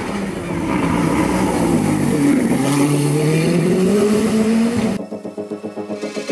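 Revolt 3P0 hillclimb racing prototype's engine at full race speed, its note dropping and then climbing steadily as the car accelerates out of a bend. About five seconds in, it cuts off suddenly and background music with a steady beat takes over.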